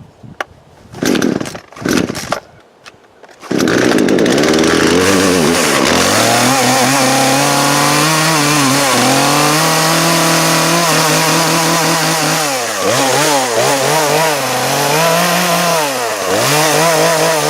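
Poulan Pro two-stroke chainsaw being pull-started: two short pulls, then it catches about three and a half seconds in and runs on steadily. Near the end its engine speed dips and rises several times. It is running again after repair.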